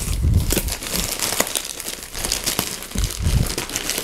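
Plastic poly mailer crinkling and tearing as it is pulled off a cardboard box, with dull handling thumps twice, near the start and near the end.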